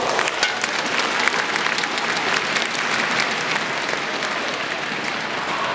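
Arena audience applauding at the end of a badminton rally: many hands clapping steadily, as the point is won.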